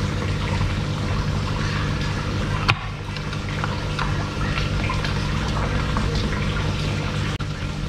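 Steady water running and splashing in a koi pond, under a low steady hum. Faint small ticks of a screwdriver turning the screws of an aerator's plastic casing, with one sharper click about two and a half seconds in.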